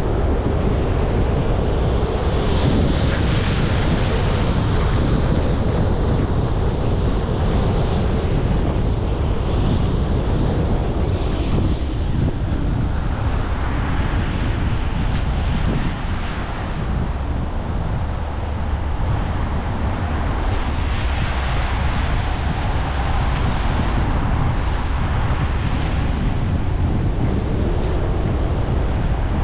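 Steady rumble and hiss of a vehicle moving through the rain, tyres on wet pavement, with the hiss swelling now and then.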